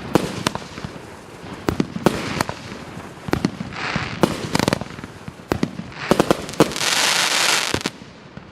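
A 500 g, 25-shot consumer fireworks cake firing: a run of sharp bangs, some in quick clusters, as shots launch and burst, between stretches of hiss from the bursting effects. The longest, loudest hiss comes about seven seconds in, after a quick cluster of bangs.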